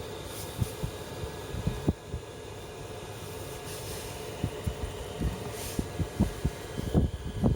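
Diesel air heater in a van running with a steady blower hum, overlaid by irregular low thumps that come more often near the end.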